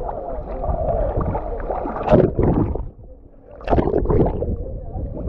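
Lake water sloshing and splashing right against a camera held at the surface, a churning rumble with sharper splashes about two seconds in and again around four seconds, and a brief quieter moment between them.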